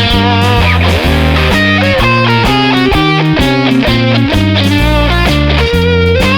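Rock music with electric guitar and bass guitar, playing an instrumental passage with quick changing notes.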